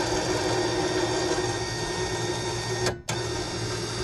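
3,500 lb KFI electric winch running, paying out synthetic line under wireless-remote control. It runs steadily, stops briefly about three seconds in, then starts again.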